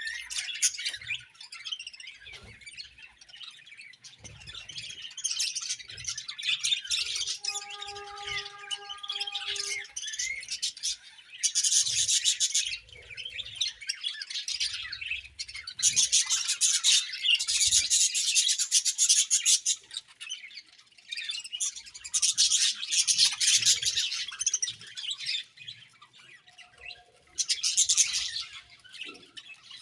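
A colony of budgerigars chirping and warbling continuously, with several louder bursts of chattering.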